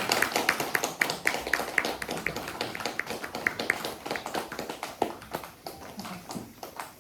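Rapid percussive tapping, about four or five strikes a second, many with a short high ringing ping. Loudest at first, it thins out and grows quieter after about four seconds.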